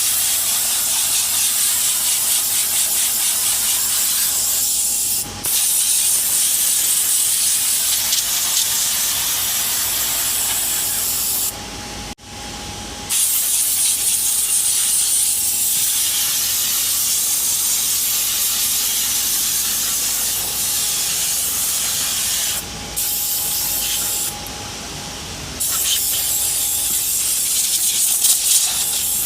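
Compressed air from an air compressor hose hissing as it is blown through a commercial refrigerator's dirty condenser to clean it. It comes in long blasts with brief pauses about 5, 12, 23 and 25 seconds in.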